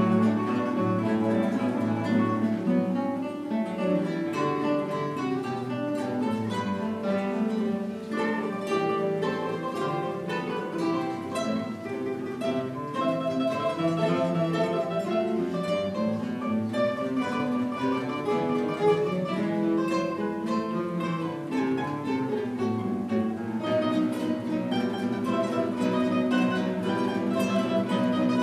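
Ensemble of acoustic guitars playing together, many plucked notes sounding at once in a continuous passage.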